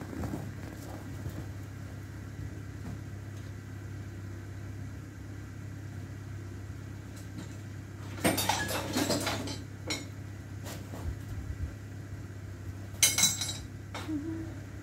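Cloth rustling and small hard things clinking as a blanket and clothes are pulled off a shed shelf, in two louder bursts about eight and thirteen seconds in, over a steady low hum.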